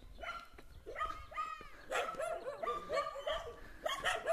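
Dogs barking and yelping in a string of short calls, some with a high, falling yelp.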